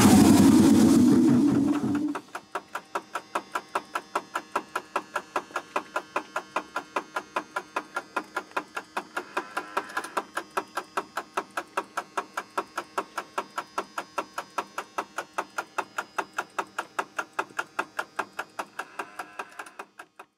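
Electric locomotive machinery winding down with a falling whine that stops about two seconds in. A steady ticking follows in the locomotive cab, about four clicks a second.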